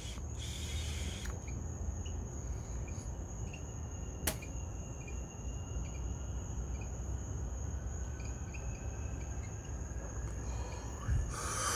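Crickets trilling steadily at a high pitch. In the first second there is a short hiss as a glass pipe is lit and drawn on, and a single click comes about four seconds in. A cough starts right at the end.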